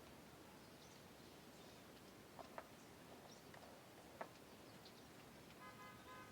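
Near silence: faint background hiss with a few faint clicks and a brief faint tone near the end.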